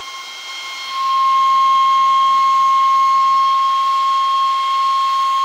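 Darjeeling Himalayan Railway B-class steam locomotive No. 806 blowing its steam whistle: one long steady note that swells louder about a second in, over the hiss of escaping steam.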